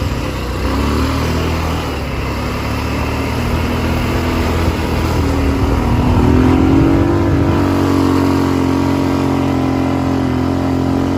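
ATV engine running under throttle. About five to six seconds in it revs up and holds at the higher speed.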